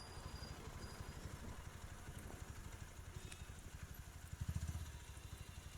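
Motorcycle engine idling: a faint, low, even throb that swells briefly about four seconds in.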